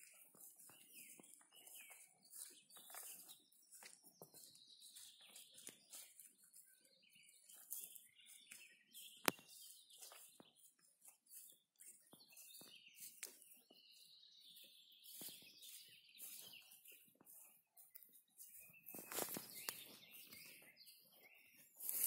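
Faint birdsong, with irregular rustling and swishing close by, like steps through tall grass; one sharp click about nine seconds in.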